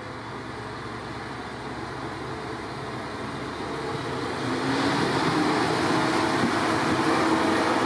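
Single-car diesel railcar approaching along the platform, its running noise growing steadily louder and stepping up about five seconds in as it comes close, with a few steady tones over the rumble.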